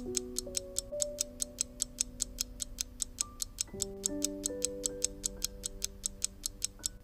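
Countdown timer sound effect: a clock ticking fast and evenly, about five ticks a second. Under it is soft background music of long held notes.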